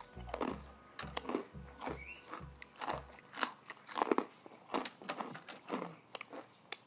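Close-up crunching and chewing of crisp fried potato snack sticks, a quick run of sharp crunches bite after bite.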